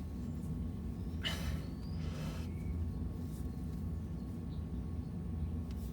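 Faint scuffing of hands giving a spin-on oil filter a last snug, twice in the first few seconds, over a steady low background hum.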